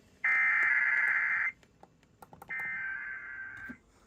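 Emergency Alert System SAME header: two bursts of warbling digital data tones, each a little over a second long with about a second's gap between them. These are the coded header that opens an alert broadcast, here for a severe thunderstorm warning.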